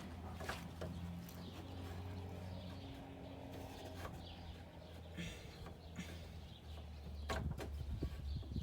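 Faint clicks and rubbing of hands working a rubber fuel hose onto the barb of an inline fuel shutoff valve, over a steady low hum.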